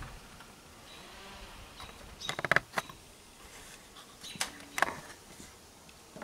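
Light clicks and taps of wood and metal in two short clusters, about two seconds in and again near five seconds, from hands working a wooden ruler against the cam gear of a 1913 Stickney hit-and-miss engine while finding the piston's centre for the ignition timing.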